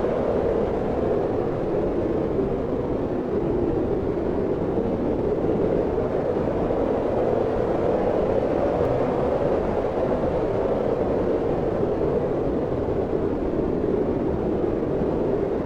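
Wind blowing steadily: a dense, even rushing noise with a low rumble beneath it.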